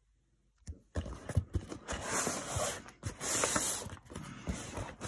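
A cardboard box being handled and turned by hand: rustling and scraping with frequent knocks and clicks, starting just under a second in.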